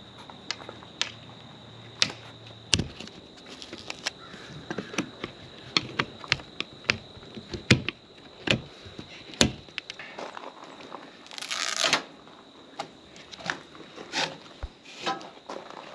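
Old window seal being pried and pulled out of a motorhome's window channel: irregular clicks and snaps, with a short scraping, tearing rasp about eleven seconds in.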